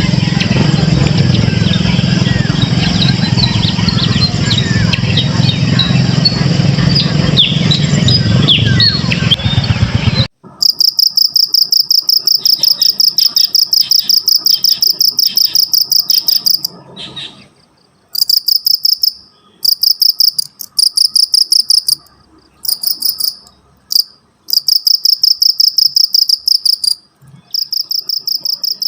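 For about the first ten seconds, a dense outdoor ambience with short bird chirps over a steady low rumble. It then cuts abruptly to a cricket chirping loudly in rapid pulse trains, high-pitched, broken by short pauses.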